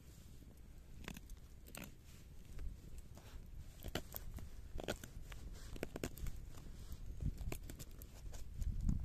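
Puukko knife blade cutting and shaving a barked wooden stick in a series of short, irregular strokes, the cuts coming more often and louder from about halfway through.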